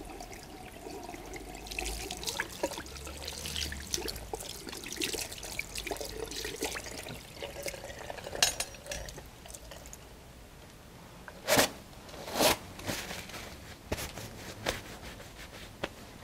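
Tap water running into a sink while soapy hands rub and rinse under it, with wet crackling and splashing. Near the middle come two short, loud rustles, then softer rubbing as the hands are dried with a paper towel.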